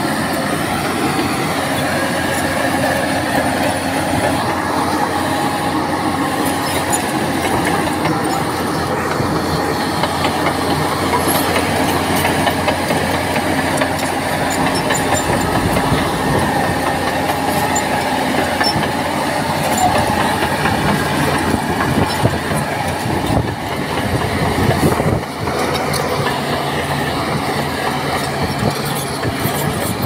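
Crawler bulldozer working: its diesel engine runs steadily under load while its steel tracks clank.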